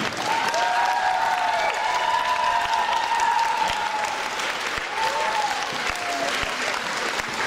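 Audience applauding steadily, with a few long gliding tones heard over the clapping.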